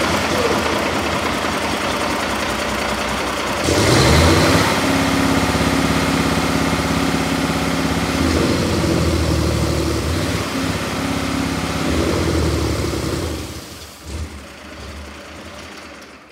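Cummins ISX inline-six diesel engine running with its valve cover off; about four seconds in it is revved up and held at a higher, steady speed for several seconds, then it drops back and dies away near the end as it shuts down.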